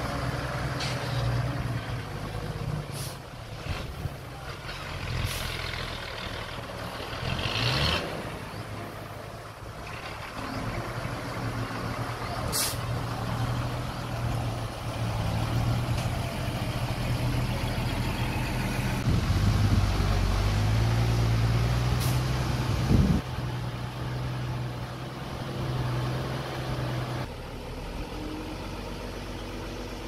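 Heavy diesel engine of earthmoving machinery running steadily, swelling louder about two-thirds of the way through. A few short high-pitched squeaks or hisses cut in, and a sharp knock sounds about three-quarters of the way in.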